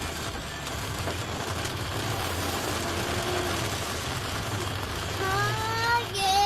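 Steady rain and wind noise with a low hum underneath. About five seconds in, a child's high voice starts, holding long, slightly rising notes.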